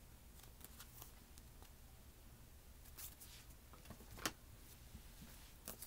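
Near silence over a faint low hum, with a few soft taps and rustles of items being handled and set down, the sharpest tap about four seconds in.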